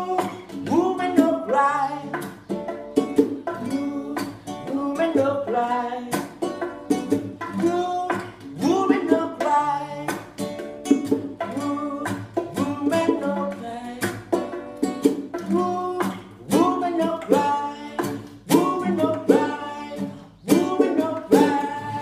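Live acoustic reggae: a strummed acoustic guitar and hand-played bongo drums, with a man singing over them.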